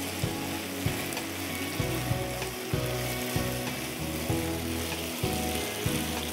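Thin strips of beef sizzling in a frying pan with dark soy sauce while a silicone spatula stirs them, its strokes against the pan giving short knocks at irregular intervals, roughly one a second.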